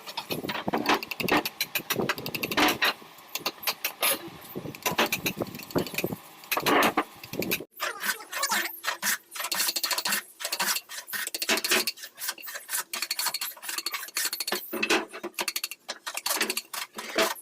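Wood being carved by hand: a rapid, irregular run of sharp taps and short scrapes from carving tools cutting into the wood.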